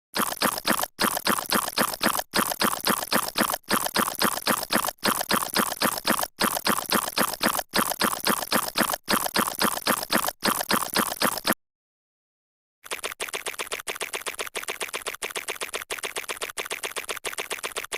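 A sneezing sound effect sped up to a rapid, chattering stream of short bursts, repeated in loops broken by brief dropouts. About two-thirds of the way through it cuts out for roughly a second, then resumes more quietly.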